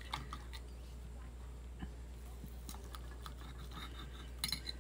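Quiet eating sounds: scattered light clicks of a fork on a ceramic plate and faint chewing, with a short cluster of clinks near the end, over a steady low hum.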